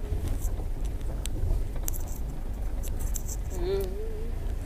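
Low rumble of a car's engine and tyres heard from inside the cabin on a rough, bumpy track, with loose things rattling and jangling in short clicks. A short wavering tone comes about three and a half seconds in.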